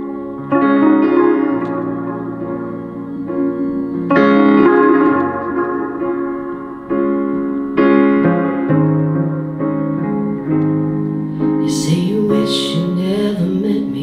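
Electric piano playing sustained chords, a new chord struck about every three and a half seconds. Near the end, guitar strums and a gliding voice come in over it.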